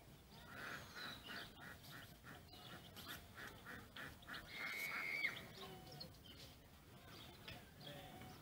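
Waterfowl calling: a quick run of evenly spaced calls, about three a second, then one longer call that rises at its end about five seconds in.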